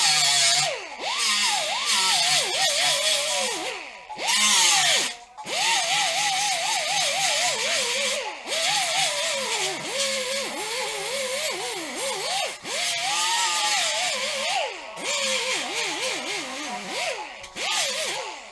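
Small air-powered right-angle grinder with a abrasive disc grinding paint and metal down to bare steel at a dent, hissing with a high whine that sags in pitch each time the disc is pressed into the panel and climbs again as it eases off. It stops briefly a few times, around four and five seconds in and again near twelve and fifteen seconds.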